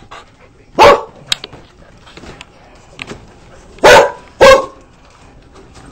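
A dog barking: three short, loud barks, one about a second in and a pair close together about four seconds in.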